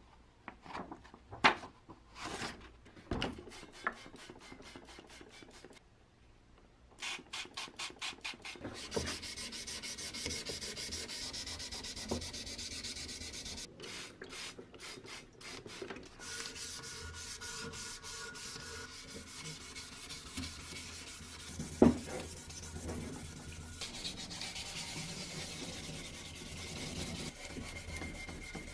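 Fine 1500-grit wet-and-dry sandpaper crinkling as it is handled, then steady back-and-forth rubbing as it wet-sands the copper tank of an old garden sprayer with water. There is one sharp knock about two-thirds of the way through.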